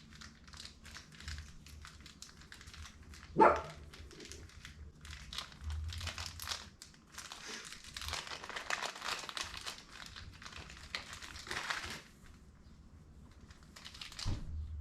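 Plastic jewelry packaging crinkling and rustling as a ring is unwrapped, heaviest in the middle of the stretch. About three and a half seconds in, one short, sharp, loud cry that falls in pitch.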